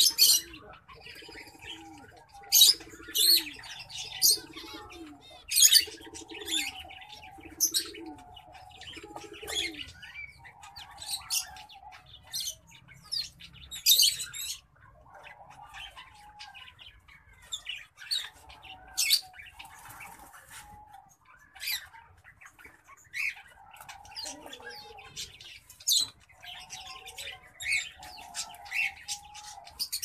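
Small caged finches calling: a dozen or more sharp, high chirps spread through, over a softer warbling. A dove coos repeatedly in the first ten seconds.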